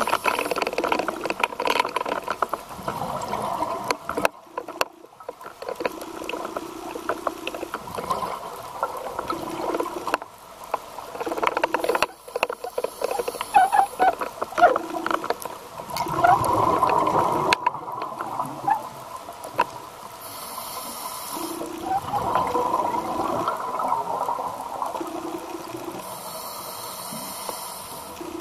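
Underwater sound of a scuba diver breathing through a regulator: irregular bubbling and gurgling of exhaled bubbles, with short hissing inhalations at intervals.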